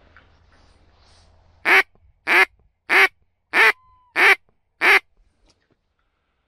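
Six loud duck quacks in an even series, about two-thirds of a second apart, starting a little under two seconds in.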